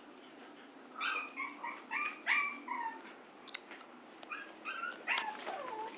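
Dogs whining and yipping in rough play: a run of short high-pitched calls, a pause, then another run near the end, some calls sliding down in pitch.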